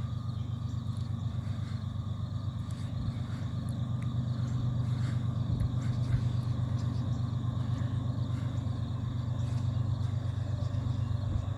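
Low, steady rumble of an approaching BNSF ES44C4 diesel locomotive leading a freight train, growing slowly louder as it nears. Insects chirp faintly in the background.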